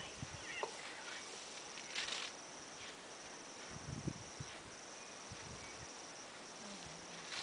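Steady high chirring of insects with short gaps, over a few brief rustles and soft low thumps as an African elephant tears up grass with its trunk to feed.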